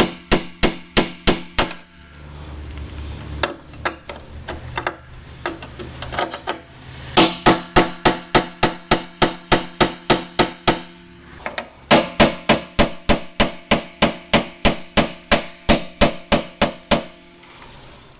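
Hammer tapping on the metal lock ring holding the fuel pump assembly in the tank, trying to knock it loose: fast runs of about four sharp, ringing strikes a second, three runs with short pauses between.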